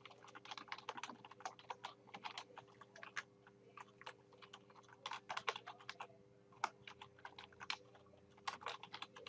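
Typing on a computer keyboard: quick, faint keystrokes in irregular runs with short pauses between words.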